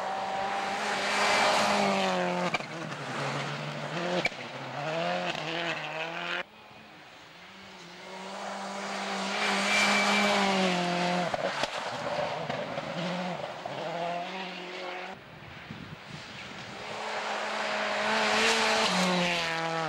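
Three World Rally Cars (a Subaru Impreza WRC, a Peugeot 206 WRC and a Ford Focus WRC) passing one after another at speed on a snowy gravel stage. Their turbocharged four-cylinder engines run hard, the pitch stepping down again and again at each gear change, with tyre and spray hiss. Each pass cuts off abruptly into the next, about a third and three-quarters of the way through.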